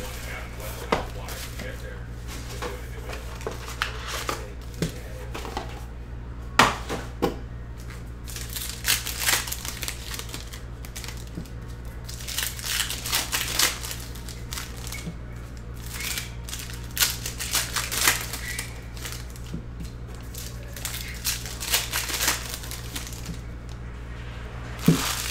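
Plastic wrapping crinkling and tearing in repeated short bursts as a shrink-wrapped box of trading cards is unwrapped and a card pack is opened. Cards are handled and shuffled in between, over a steady low hum.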